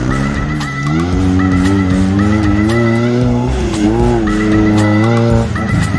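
Off-road 4x4 buggy engine revving hard under load, its pitch climbing, dipping briefly about four seconds in and then easing off near the end. Background music with a steady beat runs underneath.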